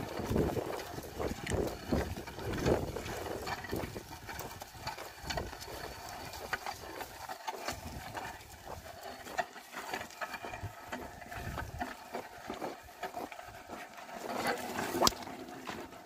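Two oxen drawing a wooden plough through dry, stony soil: irregular crunching and scraping from the ploughshare and hooves breaking the clods, with scattered footsteps and clicks.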